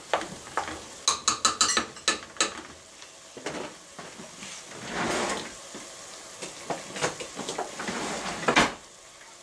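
Wooden spoon scraping and knocking in a pot of browned ground meat, a quick run of sharp clicks about a second in, then a few scattered knocks and rustles, with a faint sizzle underneath.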